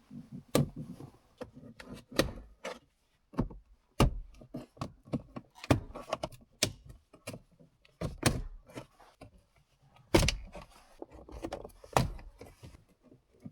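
Acura Integra's interior plastic trim pieces being pried and pulled off: an irregular run of sharp clicks, snaps and knocks as the clips let go and the panels are handled.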